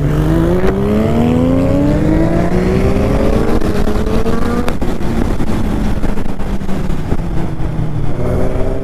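Motorcycle engine heard from the rider's seat, accelerating with its pitch climbing steadily for about four seconds, then held at speed under heavy wind rush. It starts climbing again near the end.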